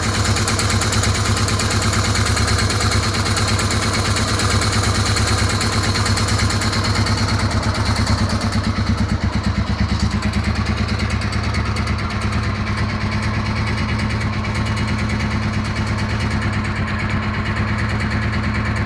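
Suzuki DR650's single-cylinder four-stroke engine idling steadily, with the engine noise that its owner is asking about as a possible fault.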